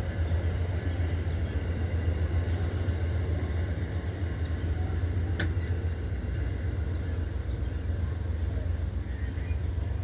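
Amtrak GE P42DC diesel locomotive running with a steady low drone, with one sharp click about five and a half seconds in.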